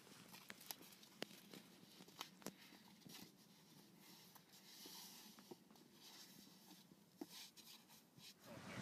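Near silence: faint room tone with scattered small clicks and ticks, about one or two a second.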